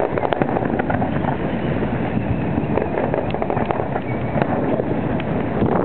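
Fireworks crackling and popping: many quick sharp cracks over a steady rumble, with no single big bang standing out.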